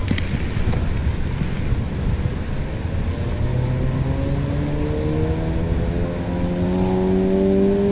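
Wind buffeting the microphone in a steady low rumble. From about three seconds in, a mechanical whine slowly rises in pitch and breaks off near the end.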